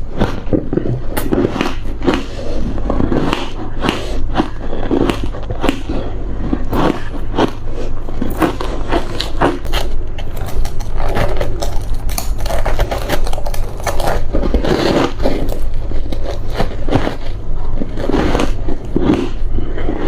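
Close-miked bites and chewing of hard frozen ice: irregular crunching and crackling strokes in quick runs, over a steady low hum.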